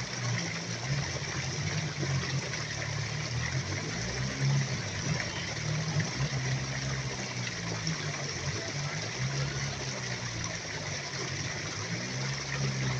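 Steady outdoor background hiss with a faint, wavering low murmur beneath it; no distinct event stands out.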